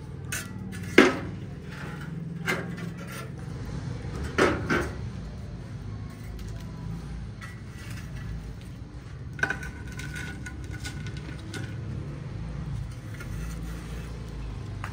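Scattered sharp metallic clanks and knocks on a large cooking pot (degh) as coals are set around the edges of its lid: four or five strikes spread over several seconds, the loudest about a second in, one leaving a short ringing tone. A steady low rumble runs underneath.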